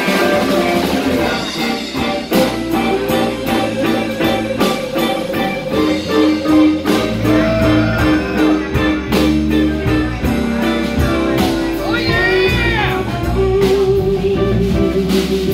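Live blues-rock band playing: guitar over bass and drums, with a bending, sliding note about twelve seconds in.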